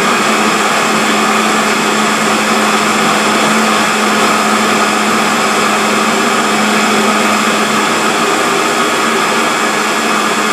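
Countertop blender running steadily at full speed, puréeing a green pea cream sauce, with a loud, even motor whine.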